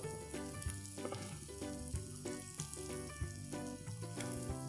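Masala-coated fish steaks sizzling steadily in oil on a flat tawa griddle, with small crackles.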